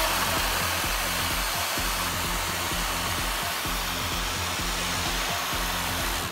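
Sloan XLerator high-speed electric hand dryer blowing at full power, a loud steady rush of air. It cuts off abruptly at the end.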